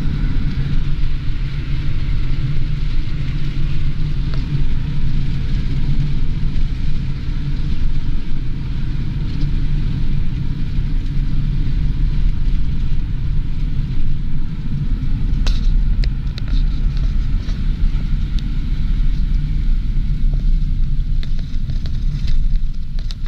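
Car interior noise while driving: a steady low rumble of the engine and tyres on the road, with a few faint clicks about two-thirds of the way through.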